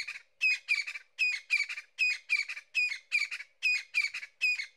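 A bird calling loudly and repeatedly in a long rhythmic series of harsh notes, about four a second and often in pairs.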